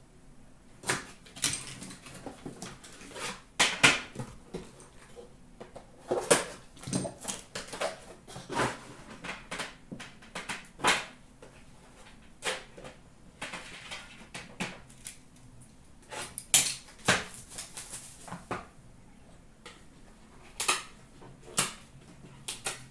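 Hands handling a hockey card box: sliding it out of its cardboard sleeve and opening it, with irregular rustles, scrapes and small knocks, the sharpest about four seconds in and near the middle.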